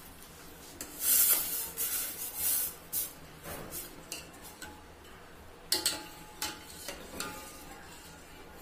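Stainless steel ladle scraping and clinking against a steel pan as cream is stirred into hot milk. The sound comes in several bursts, the longest starting about a second in.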